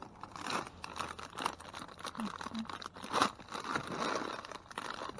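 Plastic bags crinkling and rustling as gloved hands handle a bag of pretzel nuggets among trash bags, with irregular crackles throughout and the loudest crackle a little past the middle.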